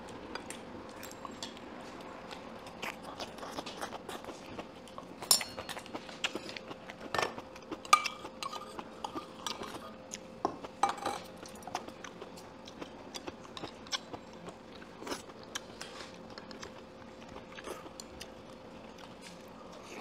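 Mealtime eating sounds: metal spoons and chopsticks clinking and scraping against stainless-steel bowls and dishes, with chewing. The clinks come irregularly and are loudest about 5 and 8 seconds in.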